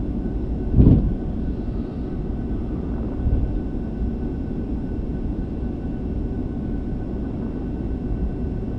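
Steady low rumble inside an Airbus A380 cockpit while the airliner taxis after landing, with a faint steady high hum above it. A single short thump about a second in.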